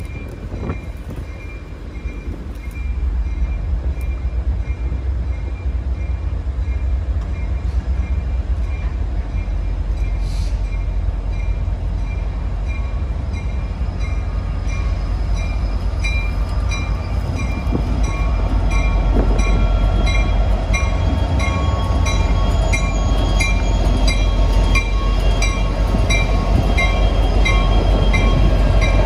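Freight train led by a Union Pacific SD70M diesel locomotive, its EMD 16-cylinder two-stroke engine rumbling as it approaches, growing louder a few seconds in and again past the halfway mark as the locomotive rolls close by. A high ding repeats steadily about twice a second throughout.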